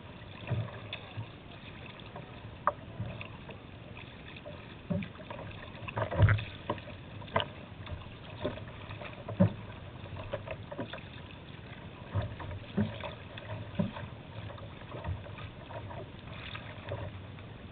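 Choppy river water slapping and splashing against a kayak's bow, with irregular knocks and splashes over a steady wash of water. The loudest knock comes about six seconds in.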